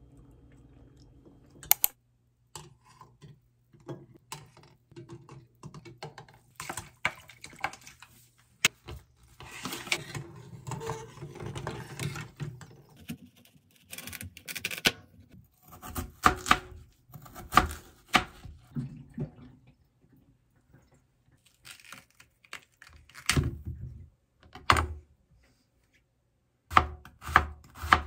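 Kitchen knife cutting Korean radish and onion on a plastic cutting board: sharp knocks of the blade hitting the board, coming in short irregular runs.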